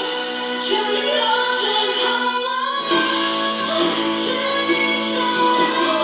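A pop song with a female singer, played through the BenQ 65IZ7500 TV's built-in 8W+8W stereo speakers. The bass comes in about halfway through.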